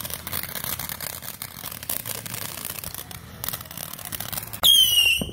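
Ground fountain firework spraying sparks with a steady dense crackling hiss. Near the end a loud, shrill firework whistle starts and holds one pitch.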